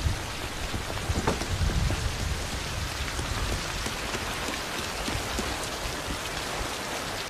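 Steady heavy rain falling, a dense even hiss, with a deeper low rumble in the first two seconds or so.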